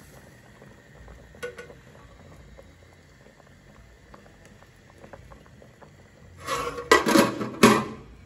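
A pot of red peas and gungo peas boiling on a gas stove, a soft steady bubbling with small pops. Near the end come a few loud clatters.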